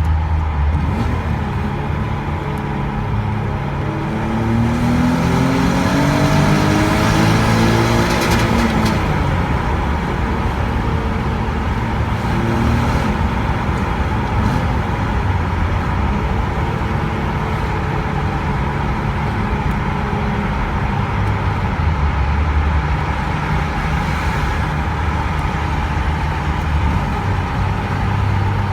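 Alfa Romeo 166's 3.0-litre Busso V6 on its stock exhaust running steadily. It is revved up over a few seconds about four seconds in and drops back, gets a smaller blip a few seconds later, then runs on evenly.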